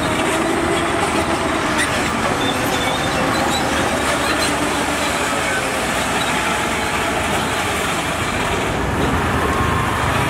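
Heavy construction machinery working: diesel engines running steadily with metallic clatter.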